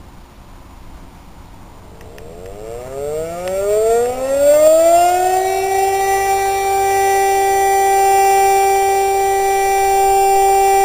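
DS977 electric motor siren starting up: its tone rises in pitch over about three seconds, beginning about two seconds in, then holds a steady loud wail. It is the opening of the fire alarm (Feueralarm) signal in a siren test.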